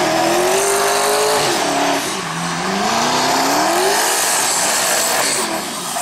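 Drift car's engine held at high revs as it slides sideways, the pitch dipping about two seconds in and then climbing again, over the steady hiss and squeal of spinning rear tyres.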